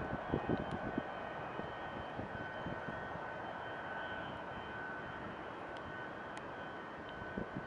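Boeing 767-300 freighter's twin jet engines on the landing rollout, moving away. The low rumble fades within the first second, leaving a steady distant engine whine over a hiss.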